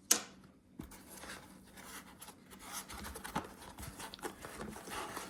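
A sharp tap just after the start, then rustling and rubbing of packaging with small clicks as the boxed items are handled and unwrapped.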